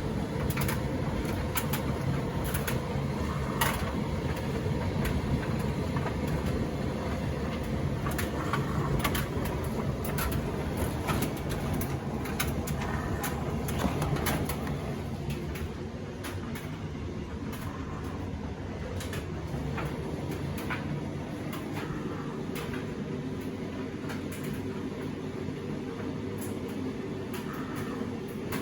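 Indesit EDCE85 condenser tumble dryer running with a full load: a steady motor hum with the drum turning, and frequent light clicks and knocks as the load tumbles. It gets a little quieter, with fewer clicks, about halfway through.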